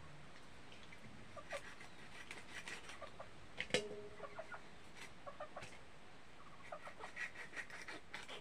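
Faint, scattered clucking of chickens, with light clicks and taps in between; the loudest cluck comes about halfway through.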